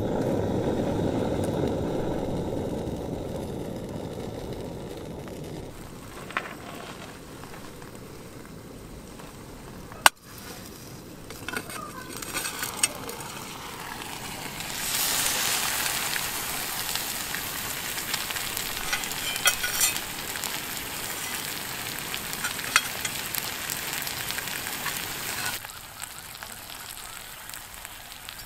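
Food sizzling and crackling in a lidded iron pan over a fire. It is loudest and most even for about ten seconds in the second half, then stops abruptly. A metal knock sounds right at the start.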